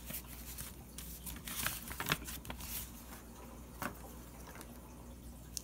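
Paper envelope and stickers being handled: scattered soft paper rustles and light taps, the clearest about two seconds in and again near four seconds.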